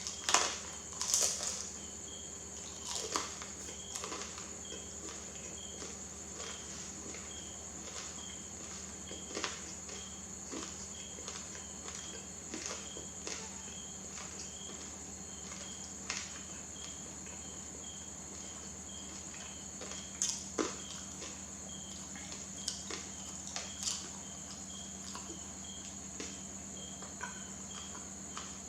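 Soft chewing and wet mouth clicks from eating a banana. They come sparsely, a cluster near the start and a few more later on, over a steady high-pitched whine with faint chirps repeating about twice a second.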